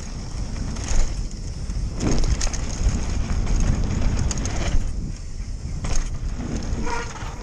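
Giant Glory downhill mountain bike rolling over a dirt jump line, heard from a GoPro on the rider: a steady rumble of wind and tyres on dirt, with several knocks and rattles from the bike over bumps and jumps.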